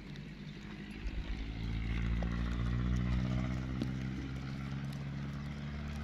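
A motor vehicle's engine passing by, growing louder from about a second in, loudest around three seconds in, then slowly fading.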